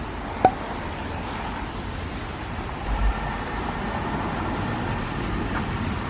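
Steady city street traffic noise from passing cars. A sharp click sounds about half a second in, and a brief low thump around three seconds in.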